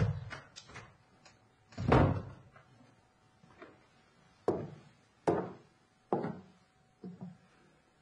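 A series of hard knocks and thumps: one at the start, a louder swelling thump about two seconds in, then four or five single knocks spaced under a second apart in the second half.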